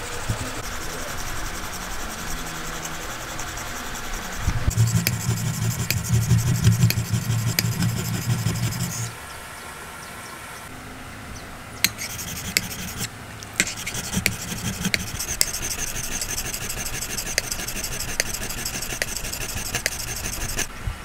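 Steel chisel blade rubbed back and forth on a wet sharpening stone in rhythmic scraping strokes, with a heavier, louder stretch of strokes about a third of the way in.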